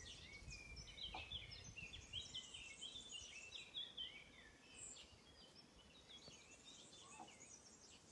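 A flock of small birds chirping and twittering together in a dense, overlapping chatter, a little fainter in the second half, over a low rumble of wind or handling on the microphone.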